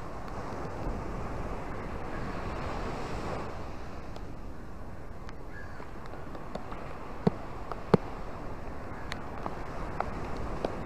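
Small waves washing in over sand and rocks in the rain: a steady rush of surf that swells for a second or two near the start. Scattered sharp ticks sit on top, two louder ones a little past the middle.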